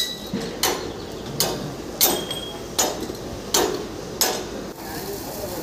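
Hammer blows on the steel of a rail joint during thermite welding work, a steady series of sharp metallic strikes about three every two seconds. Some strikes ring briefly, and the series stops a little after four seconds in.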